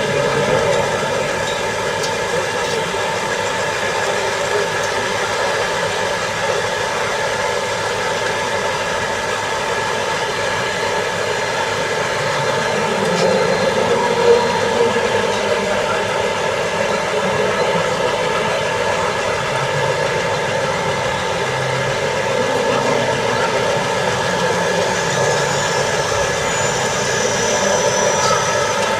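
Radio-controlled construction models running, their electric motors and hydraulic pumps making a steady whine of several held pitches.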